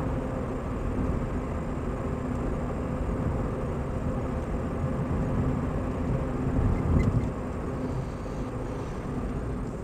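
Car interior noise while driving steadily at about 55 km/h: a steady engine hum under tyre and road rumble. About seven seconds in, the rumble swells briefly and there is a short knock.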